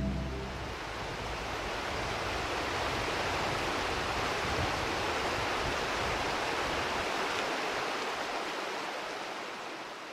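River water rushing over rocky rapids: a steady rushing that fades out near the end. The last of a music track dies away in the first moment.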